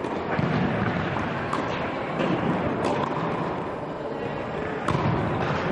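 Tennis balls struck by rackets during practice: several sharp pops a second or two apart over a steady background din.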